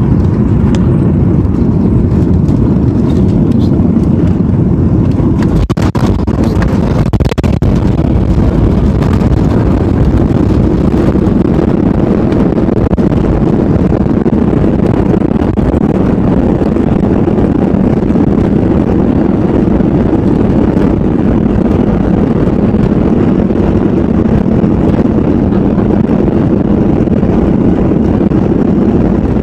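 Steady cabin noise inside a Boeing 737-800: the deep, even rush of its CFM56 jet engines and airflow. A few brief knocks come through about six to seven seconds in.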